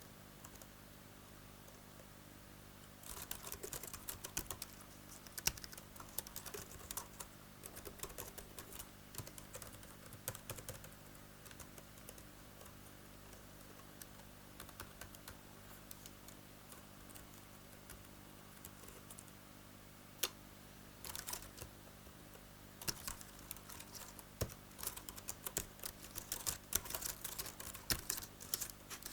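Typing on an A4Tech Fstyler FX55 keyboard, a run of quick key clicks. It starts about three seconds in, thins out midway with a short pause, and picks up again, busier, toward the end.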